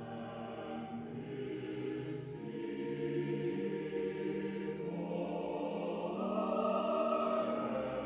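Church choir of mixed voices singing long, held chords, growing somewhat louder near the end.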